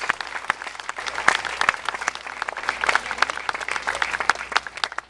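Crowd applauding, a dense patter of many hands clapping with a few sharper individual claps standing out.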